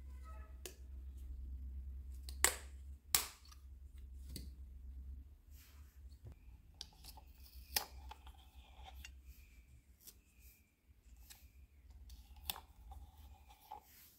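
Sharp plastic clicks and snaps, the loudest a pair a few seconds in, as toy play coins are snapped off their plastic runner and plastic wheels are pressed onto a toy cart. A low steady hum runs underneath.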